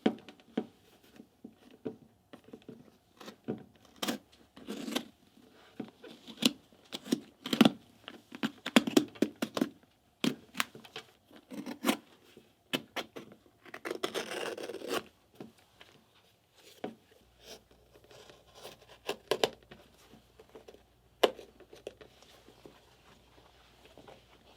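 Handwork noises: a scattered run of sharp clicks, taps and short scrapes, with one longer rasping scrape about fourteen seconds in. Over the last third the clicks thin out over a faint low hum.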